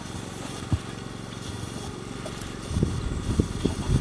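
Steady low mechanical hum, with one short low knock a little under a second in and a cluster of dull low thumps near the end.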